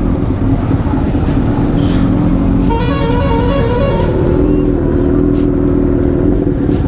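Motorcycle engine running steadily, with a vehicle horn sounding for a little over a second near the middle.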